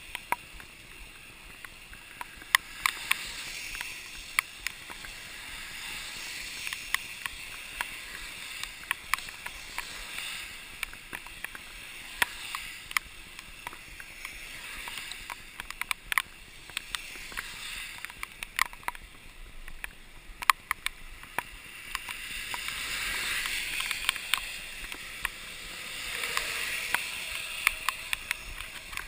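Hiss of a mountain bike's tyres on a rain-soaked road, with many sharp ticks of raindrops hitting the camera. The hiss swells louder a few seconds in and again for several seconds past the twenty-second mark.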